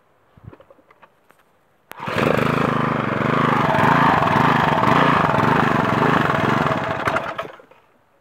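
Briggs & Stratton 375 Sprint single-cylinder lawnmower engine, with no blade fitted, started by hand. It catches suddenly about two seconds in, runs loudly for about five seconds, then dies away, a stop the owner calls not normal.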